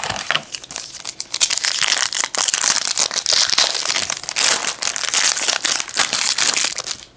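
A foil trading-card pack wrapper being torn open and crinkled in the hands, a dense run of crackling and crumpling.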